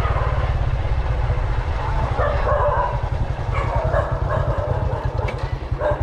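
Motorbike engine running at steady speed with a fast, throbbing low rumble. A dog barks in short bursts about two seconds in, again near four seconds and again near the end.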